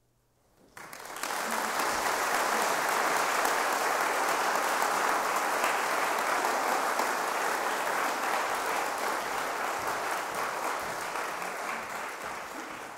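Audience applauding, starting suddenly about a second in after near silence, holding steady, then beginning to fade near the end.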